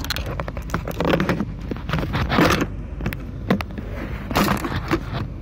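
Handling noise from a phone moved about by hand: rubbing, scraping and small knocks, with louder rustles about a second in, midway and near the end. Underneath is a steady low rumble of a car cabin.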